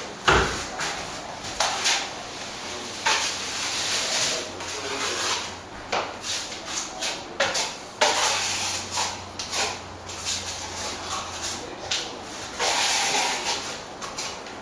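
Steel plastering trowel scraping across plaster on a wall in long strokes, with short knocks and taps between them. A single heavy thump comes just after the start.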